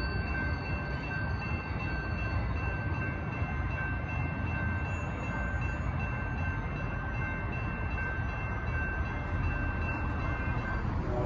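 Altamont Corridor Express commuter train rolling through a grade crossing: a steady low rumble of wheels on rail, with a thin, steady high ringing that stops near the end.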